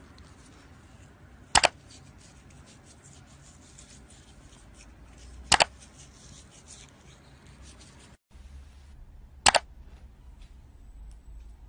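Computer-mouse click sound effect, a sharp double click repeated three times about every four seconds, over faint background noise.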